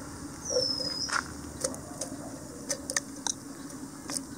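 Pieces of cut dragon fruit tipped from a plate into a stainless steel mixer jar, making a few light taps and soft knocks against the steel. A high falling chirp sounds about half a second in, over a steady outdoor background.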